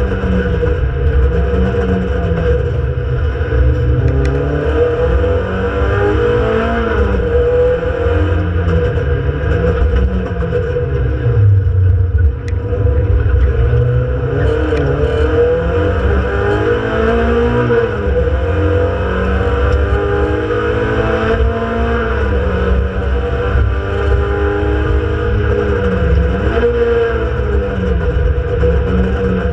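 Renault Clio Sport 182's 2.0-litre four-cylinder engine at racing pace, heard from inside the cabin: the revs climb and fall back again and again as the car accelerates through the gears, brakes and downshifts.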